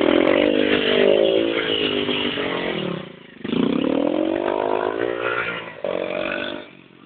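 Motorcycle engine revving in two long runs, the pitch climbing and falling, with a short drop about three seconds in and a fade near the end.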